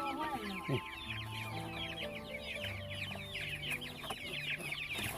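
A flock of young chicks peeping continuously, many short high chirps overlapping, each falling in pitch.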